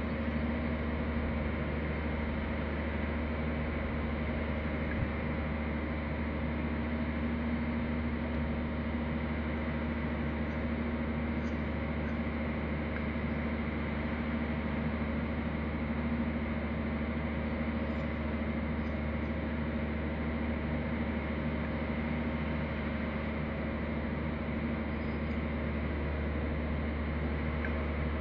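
A steady low hum with an even hiss, unchanging throughout, with one faint knock about five seconds in.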